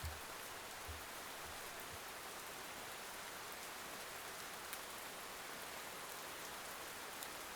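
Steady rain falling on a surface, an even hiss with a few faint low thuds of heavier drops.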